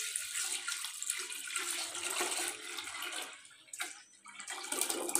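Buttermilk (lassi) pouring in a thick stream from a jug into a large metal pot of cooked masala, splashing steadily. The sound dips for a moment a little past halfway, then the pour comes back up near the end.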